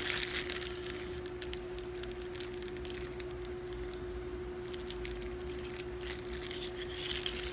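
Faint crinkling of a clear plastic bag being handled, in patches at the start and again in the second half, over a steady low hum.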